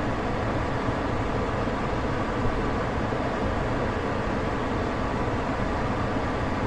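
Steady road and tyre noise heard inside the cabin of a BYD Seagull electric car while it is being driven, with no engine sound.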